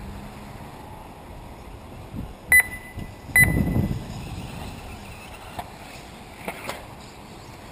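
Two short, high electronic beeps just under a second apart. A low rumbling thump comes right after the second beep, and a few faint clicks follow later.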